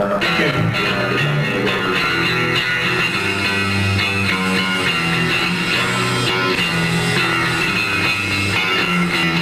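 Rock band playing live, with guitars and bass guitar carrying a steady, loud passage.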